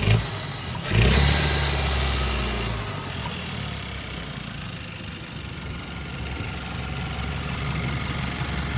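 2014 Hyundai Sonata 2.0T's turbocharged four-cylinder engine, blipped briefly about a second in, then settling back to a steady idle. There is a short knock at the very start. The noise comes from an exhaust leak, which the owner had first taken for a failing turbo.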